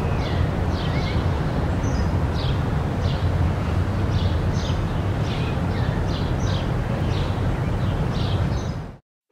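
Outdoor ambience: a steady low rumble with small birds chirping briefly and repeatedly over it, cutting off suddenly near the end.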